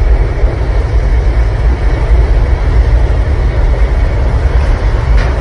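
Loud, steady low rumble of aircraft engine blast and the wind it drives buffeting the microphone.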